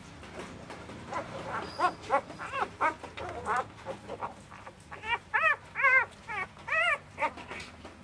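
Newborn puppies squealing and whimpering while nursing: a string of short, high cries, each rising and falling in pitch, starting about a second in and coming thickest from about five seconds in.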